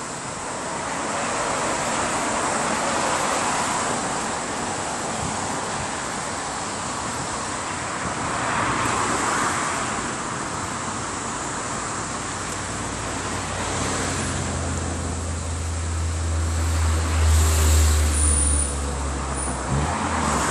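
Steady road traffic noise with slow swells as vehicles pass; about two-thirds of the way through, a heavy vehicle's low engine rumble builds up and peaks shortly before the end.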